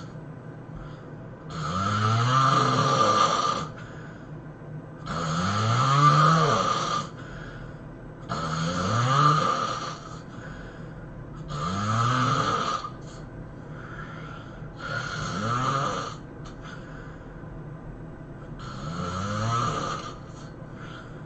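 A person snoring heavily in sleep: six long, loud snores about three and a half seconds apart, each rising and then falling in pitch, with quieter stretches between them.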